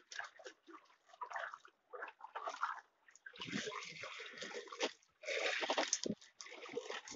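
Sea water sloshing and splashing against the hull of an outrigger fishing boat, in uneven bursts with short lulls between them.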